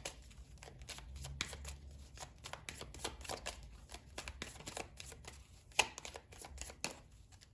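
A deck of tarot cards being shuffled by hand: a quick run of soft card flicks and slaps, with one sharper snap about six seconds in.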